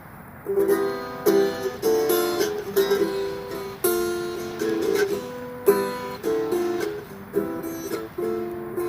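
Strummed chords on a small acoustic string instrument, struck about once a second and left to ring: the instrumental intro of a song, just before the singing comes in.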